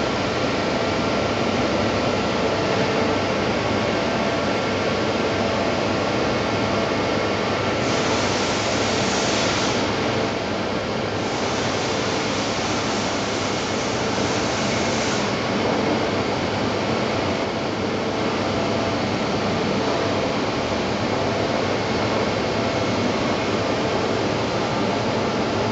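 Steady machine hum of a powered Mitsui Seiki HS5A horizontal machining centre, its running pumps and motors giving a constant noise with faint steady tones. A brighter hiss joins about eight seconds in for a second or so, and again for about four seconds a little later.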